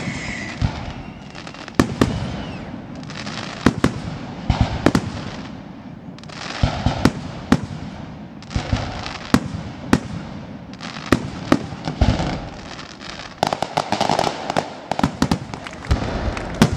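Fireworks display: aerial shells bursting with sharp bangs about once a second, crackle hissing between them, and a quicker run of bangs near the end. A falling whistle dies away at the start.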